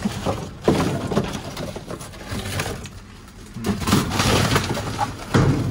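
Cardboard boxes and brown packing paper being shoved aside and lifted by gloved hands, in uneven bursts of rustling and crinkling, with a quieter stretch about halfway through.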